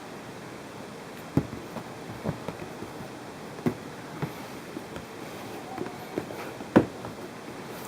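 A handful of sharp, irregular clicks and knocks over a steady background hiss, the loudest one near the end.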